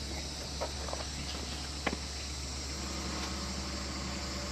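Steady outdoor background of insects droning in a high, even chorus over a low steady hum, with a few faint clicks in the first two seconds.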